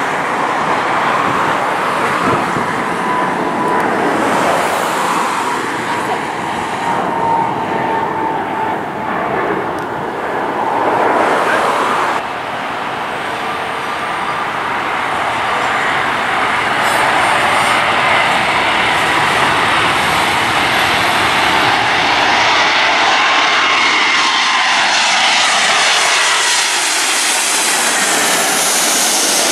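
Jet engine noise from Boeing 777 twin-engine airliners: first a jet climbing out after takeoff, then, after an abrupt cut, a landing jet on low final approach that grows louder as it nears and passes overhead, with whining engine tones over the rumble.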